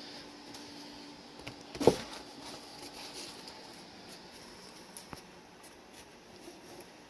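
Handling noises: a single thump about two seconds in, then a few faint clicks, over a faint steady hum that fades out early.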